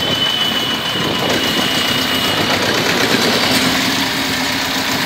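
The two-cylinder diesel engine of a 2003 TAFE 25 DI tractor idling steadily.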